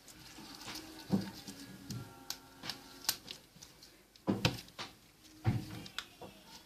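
Borax slime being squeezed and pulled apart in the hands, giving irregular sticky clicks and squelching pops, with a few louder ones around four and a half and five and a half seconds in.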